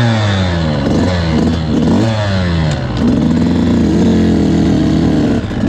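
300 cc two-stroke fuel-injected enduro motorcycle engine revved in a few throttle blips, its pitch falling and rising, then running at a steady, slightly wavering speed from about halfway. The revving clears oily, sour two-stroke residue out of the engine.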